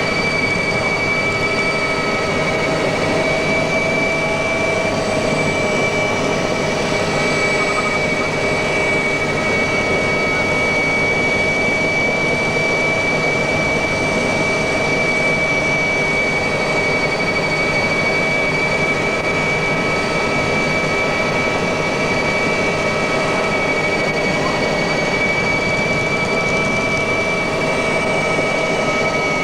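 Mi-2 helicopter in flight, heard from inside the cabin: a steady, dense noise from its twin turboshaft engines and rotor, with several steady whining tones held unchanged throughout.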